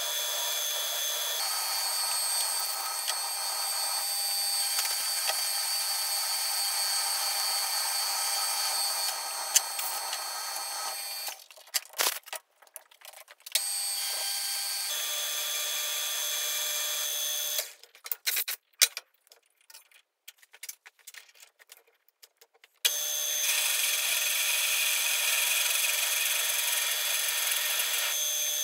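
Metal lathe drilling a steel rod with a twist drill fed from the tailstock: a steady machine whine with several high, thin tones. It stops twice for a few seconds, with a few clicks in the gaps, and starts again, slightly louder for the last stretch.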